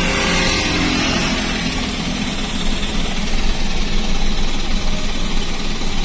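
Car engine running with road noise, heard from inside the cabin as the car pulls through a left turn.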